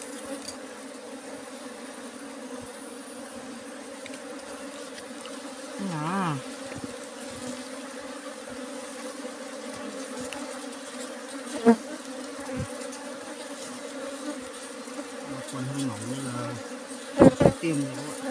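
A swarm of dwarf honeybees buzzing steadily over their cut-open comb, with a louder wavering buzz about six seconds in. There are a few sharp knocks, one about halfway and a cluster near the end.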